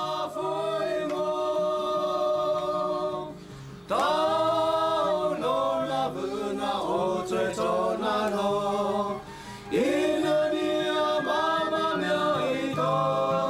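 A group of voices singing a slow, chant-like song in long held phrases over a steady low drone. The singing breaks off briefly about 4 seconds in and again just before 10 seconds in.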